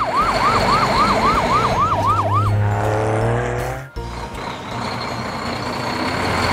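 Cartoon siren sound effect: a fast yelping siren swooping up and down about four times a second, stopping about two and a half seconds in, over a steady low hum. After a sudden break near four seconds, a steadier background sound continues.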